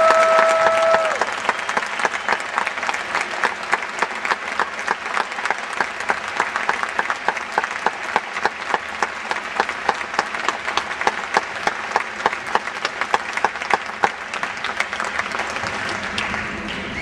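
Audience applause with individual claps distinct. It is loudest in about the first second, with a brief held high tone over it, then settles into steady clapping.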